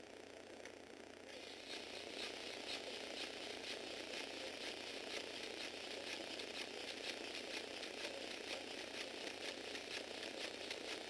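Lego Technic bug robot mechanism running: a small motor whirs through plastic gears. About a second in, an even, fast rattle of plastic parts clicking joins it, several clicks a second.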